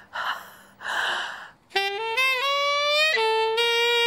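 A couple of loud breaths, then a saxophone plays a short run of notes that climb in pitch before dropping to a lower note that is held.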